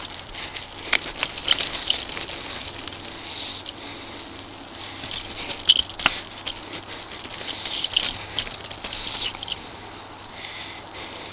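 Mountain bike rolling fast over rocky, gravelly singletrack: the tyres crunch and hiss on the surface while the bike rattles and clicks over the bumps, with scattered sharp knocks, the loudest a little past halfway.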